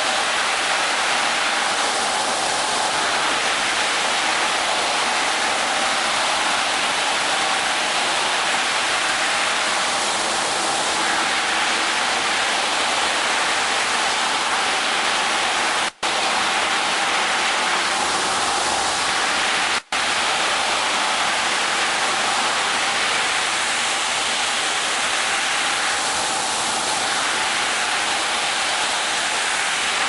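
Hanta Systems automatic carpet washing machine at work: water jets spraying onto a rug under rotating scrub brushes, a steady rushing hiss with a faint steady hum from the machine. The noise swells slightly about every eight seconds and cuts out for an instant twice near the middle.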